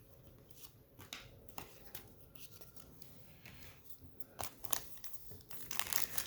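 Trading cards and a pack wrapper being handled: scattered soft clicks and rustles, building into crinkling and tearing of the wrapper near the end as the next pack is opened.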